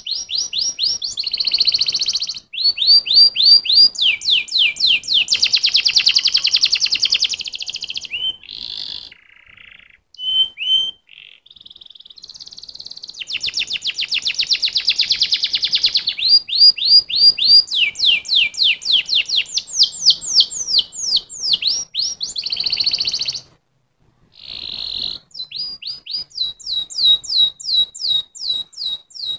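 Domestic canary singing: long runs of quick, high, falling chirps alternating with very fast rolling trills, with a few short breaks in the song.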